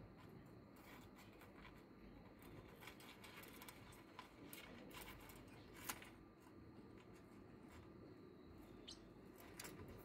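Faint, scattered clicks and scratches of parrotlets' beaks and feet picking at a window ledge and its metal track, with one sharper click about six seconds in.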